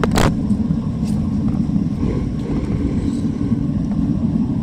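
Gas-fired melting furnace running hot: a steady low roar of the burner and its blower fan. A short sharp knock sounds just at the start.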